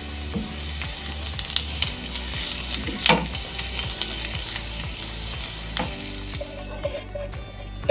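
Chopped onions sizzling in hot oil in a nonstick frying pan, fried to golden brown, with a silicone spatula stirring and scraping them across the pan, the loudest scrape about three seconds in. The sizzle drops away near the end.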